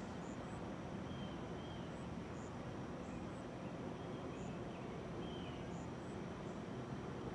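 Small birds giving short, high chirps and a few brief song notes at irregular intervals over a steady low background rumble and hiss.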